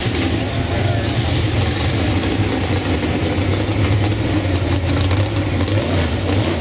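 Drag-race car with a Mercedes coupe body, its engine running loud and steady at low revs as the car rolls slowly along.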